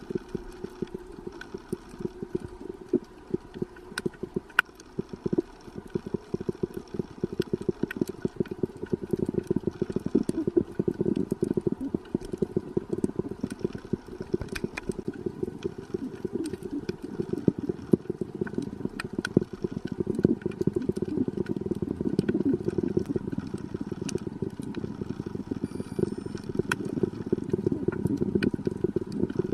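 Underwater sound of the sea heard on a breath-hold dive: a dense, continuous crackle with scattered sharp clicks.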